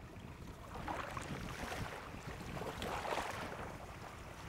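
Wind buffeting the microphone outdoors, a steady rumbling wash of noise that swells about a second in and again around three seconds.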